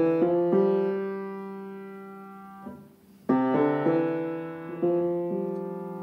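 Upright piano played in slow chords, each struck and left to ring down. The sound fades out just before the three-second mark, then a new phrase begins with a few quick notes and another held chord.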